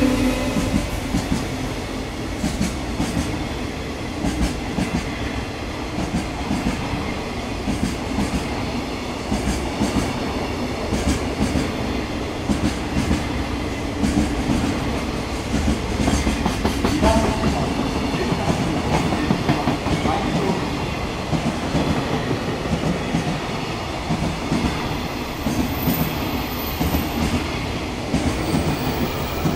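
Container wagons of a freight train rolling steadily past, a continuous rumble with the clickety-clack of the wheels over the rail joints.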